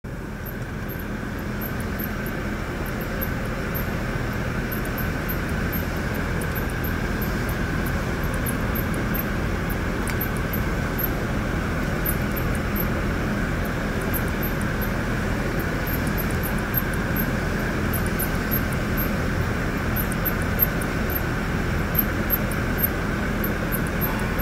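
A steady mechanical drone with a low hum and a faint high-pitched whine, unchanging throughout.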